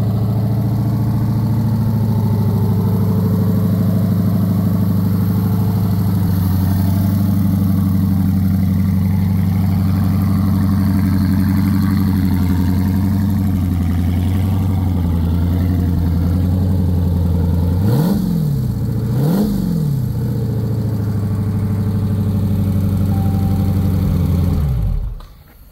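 6.4-litre 392 HEMI V8 crate engine on a run stand, idling steadily; the idle steps down a little about six seconds in. Near the end it gets two quick throttle blips about a second and a half apart, then it is switched off and runs down.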